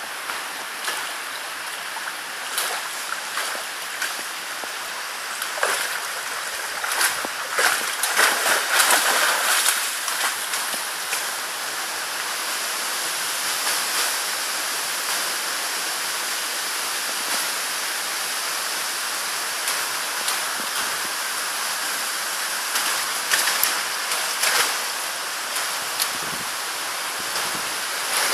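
Shallow river flowing steadily over a stony bed. Irregular splashes from a dog wading and swimming come through it, busiest from about six to ten seconds in and again near the end.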